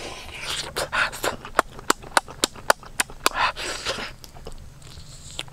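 Wet lip-smacking and chewing from a person eating cooked octopus: sharp smacks about three a second, with a short lull a little past the middle, and breathy mouth and nose noise between them.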